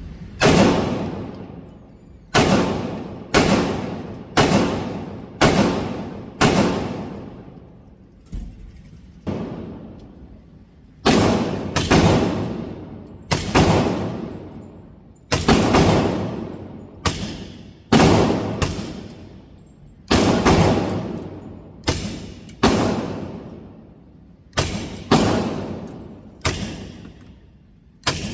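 Pistol, a CZ Shadow 2, fired shot after shot, about two dozen rounds at roughly one a second with some quicker follow-up pairs, each crack trailing off in an echo.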